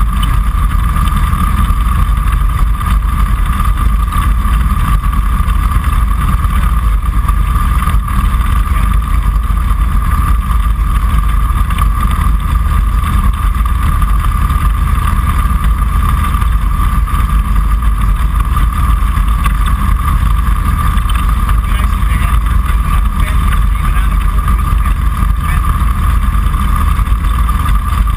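Kitfox Series 5 light aircraft's engine and propeller running steadily, heard from inside the cockpit, with a steady whine over the engine noise.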